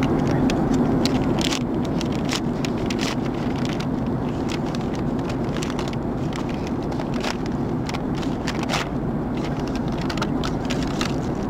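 Paper bag crinkling and rustling in short bursts as a child's hands rummage inside it, over the steady drone of an airliner cabin in flight.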